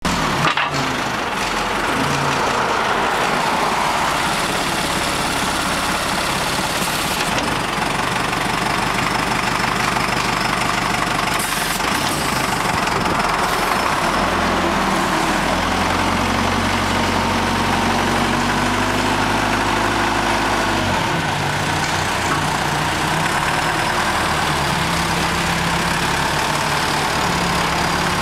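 Caterpillar forklift engine idling steadily. Partway through, its note rises and holds for several seconds, then drops back to idle.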